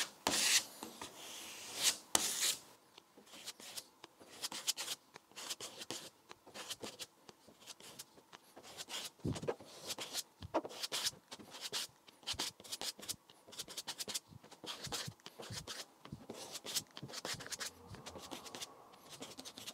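Yellow plastic spreader scraping fine putty thin across a car bonnet, in short, irregular strokes with a few louder scrapes.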